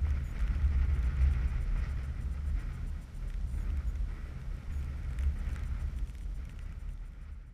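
Heavy wind buffeting on an action camera's microphone while skiing fast behind a snow kite, a loud low rumble with a fainter hiss above it. It dies down near the end.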